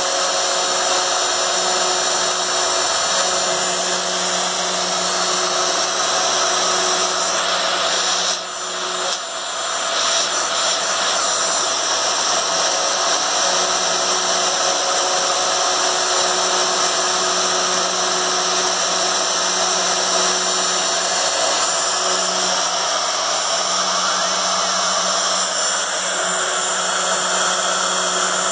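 Homemade CNC machine running, its motor giving a steady power-tool whine with several held tones and a short dip about eight seconds in.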